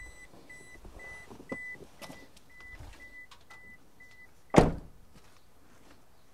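A Toyota Alphard minivan's warning chime beeping about twice a second while its front door stands open, stopping a little after four seconds in, followed by the door slamming shut with a single loud thunk.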